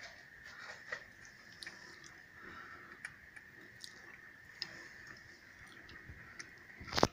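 Raindrops tapping irregularly on a window pane, over a faint steady high-pitched tone, with one sharp, loud knock near the end.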